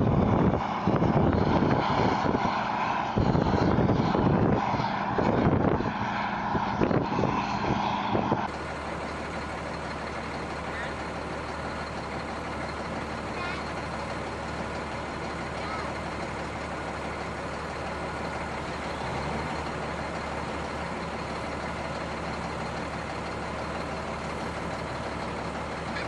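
Diesel engines of a combine harvester and a semi-truck running while the combine augers grain into the truck. For the first eight seconds or so heavy gusting wind on the microphone covers them; after a sudden change the engines settle into a steady, quieter drone.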